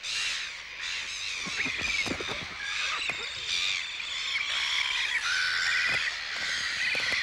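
Black-billed gull colony calling: many overlapping high, harsh calls and squeals from adults and downy chicks, some trilling. It is the noise of squabbling at the nests, as chicks stray into nests where they are not their parents' own.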